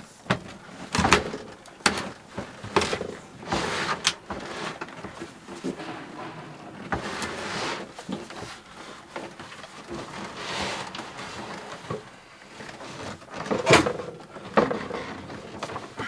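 Irregular knocks, clunks and scraping as an absorption fridge is worked loose and pulled out of its cabinet, with the loudest knock near the end.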